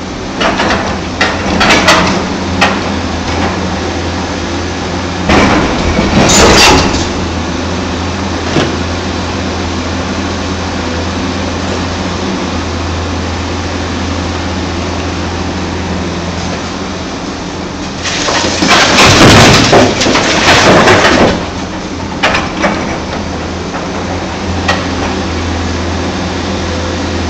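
Hyundai Robex 290LC-9 excavator loading demolition rubble into a steel dump-truck bed over a steady diesel engine hum. Broken concrete and brick crash and rattle into the bed in several loud bouts, the longest about two-thirds of the way through.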